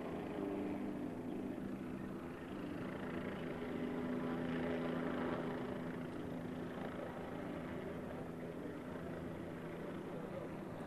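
Vehicle engine idling with a steady, even hum, over a wash of street noise.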